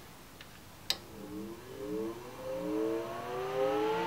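A sharp click about a second in, then the fan of a 700-watt electric enclosure heater spinning up. Its whine wavers at first, then rises steadily in pitch and grows louder as the fan gathers speed: a very weird sounding heater.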